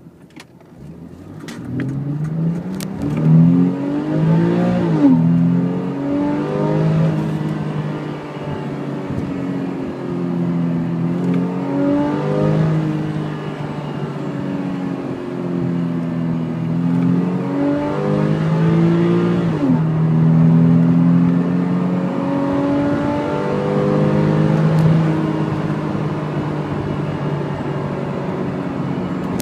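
Porsche 997 flat-six engine revved up and let fall back several times, its pitch climbing and dropping with each rev. The owner is demonstrating a whistle that comes in at high revs. A few sharp clicks sound in the first seconds.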